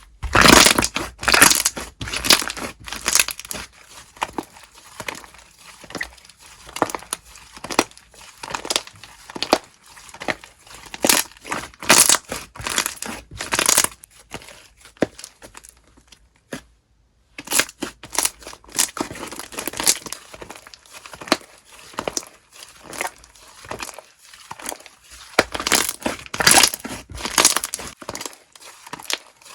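Slime being squished and pressed by hand, giving dense runs of crackling and popping, with a short dead-silent break a little past halfway.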